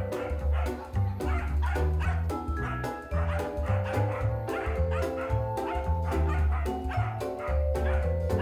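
Corgis barking and yipping repeatedly at a hovering toy helicopter, over background music with a heavy pulsing bass beat.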